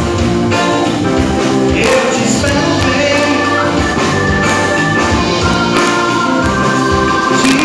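A live band playing: acoustic-electric guitar, electric bass, keyboard and drums, with a man singing.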